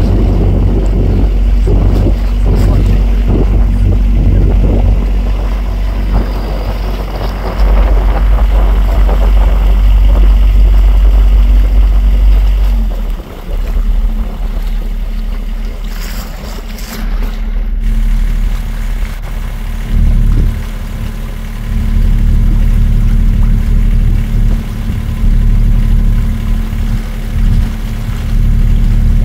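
Motorboat engine running with a steady hum, water splashing against the hull and wind rumbling on the microphone. About halfway through the splashing dies away and the engine note drops as the boat slows toward the jetty.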